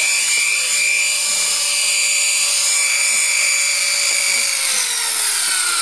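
Walkera 4F200LM electric RC helicopter giving a steady high motor-and-rotor whine as it hovers low over the ground. About four and a half seconds in, the whine starts falling in pitch as the motor and rotor wind down after it sets down.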